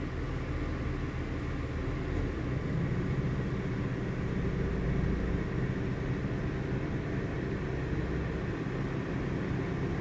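An engine idling with a steady low rumble, a little fuller from about two and a half seconds in.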